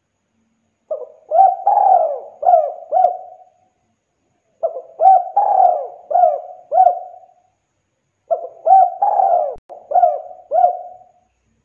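Spotted dove cooing: three phrases of several short coos each, a few seconds apart.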